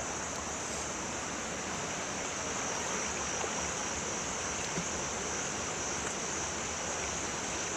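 A waterfall's water rushing and splashing into its pool: a steady, even rush with no breaks.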